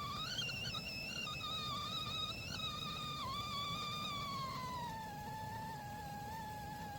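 Aluminium whistling kettle whistling through its spout as the water boils: one wavering whistle that sinks a little in pitch partway through.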